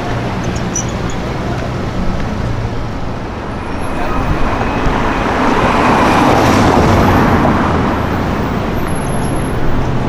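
BMW E93 M3 convertible's V8 driving close past and away, swelling to its loudest in the middle and then fading, over street traffic noise. Before it, a low steady engine note from a slow-moving car.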